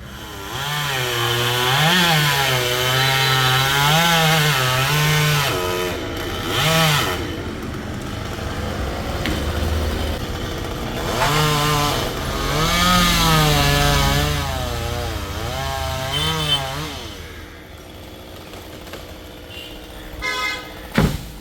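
Two-stroke chainsaw revving up and down in two long runs, its pitch rising and dipping repeatedly, with a short throttle blip between them. It drops back to a low idle near the end, where a few sharp knocks are heard.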